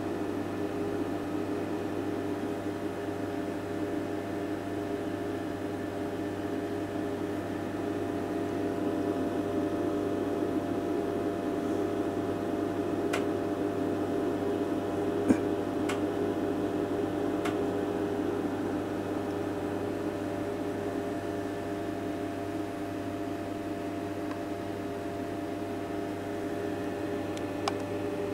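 Steady mains hum and buzz from running bench electronics, with several steady tones layered in it. A few light clicks come through, the sharpest about halfway through.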